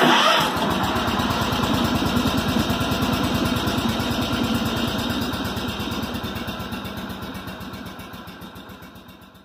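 Small engine running steadily with an even, rapid firing beat. It comes in abruptly at its loudest and fades out gradually over the last few seconds.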